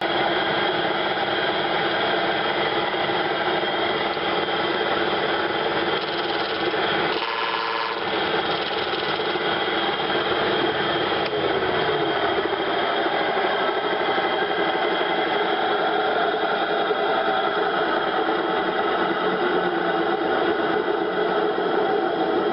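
Woodworking lathe running steadily under power, spinning a homemade Longworth chuck with a cast plastic part clamped in it. The motor noise cuts in suddenly at the start.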